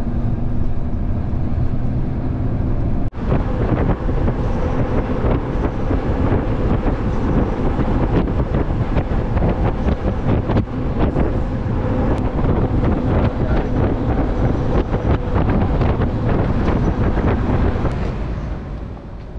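Heavy truck on the road, heard from inside the cab: steady engine and road noise with wind rushing. A sudden break comes about three seconds in, after which the road and wind noise is denser; it falls away near the end.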